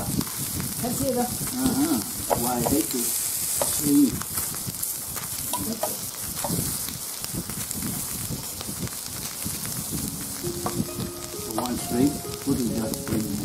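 Shrimp sizzling on a ridged indoor tabletop grill plate: a steady frying hiss. Faint steady musical tones join near the end.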